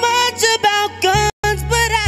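A man singing a wordless, melismatic R&B vocal run over a slow backing track; the sound cuts out for a split second about halfway through.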